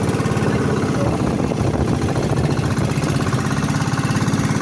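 Engine of a bamboo outrigger boat (bangka) running steadily under way, a fast, even pulsing chug.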